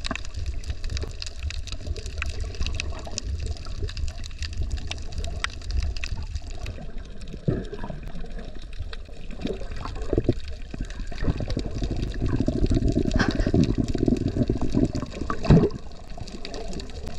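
Water sloshing and gurgling around a camera held underwater while snorkelling, with a steady low rumble and scattered clicks. The sloshing grows louder toward the end, and there is one sharper knock near the end.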